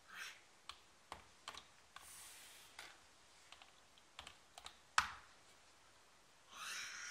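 Hard plastic toy dinosaur figures knocking and tapping on a floor as they are handled: scattered sharp clicks, the loudest about five seconds in, with soft rustles between.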